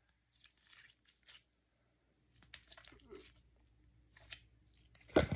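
Clear slime being squeezed and worked by hand, giving short, faint crackles and squelches, with a louder pop near the end.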